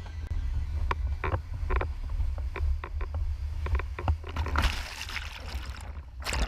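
Windsurf board planing over chop: wind rumbles on the action camera's microphone and water slaps against the board in quick irregular knocks. A rushing hiss of spray builds a few seconds in and peaks in a loud burst near the end as water washes over the camera.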